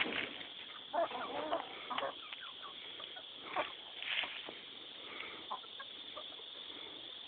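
Hens clucking in short, scattered calls, busiest in the first couple of seconds and thinning out after that.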